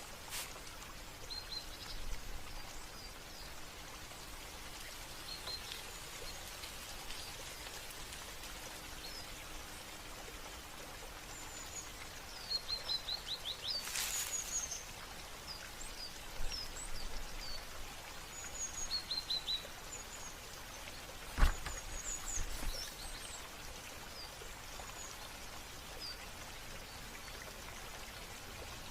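Small birds chirping and twittering in quick runs of short notes over a steady hiss of running water. A single sharp click near two-thirds of the way through is the loudest sound.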